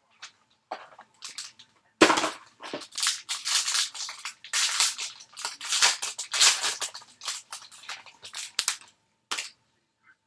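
A foil trading-card pack wrapper being torn open and crinkled in the hands: a dense run of crackling and ripping that starts sharply about two seconds in and stops about a second before the end, with one last crinkle just after.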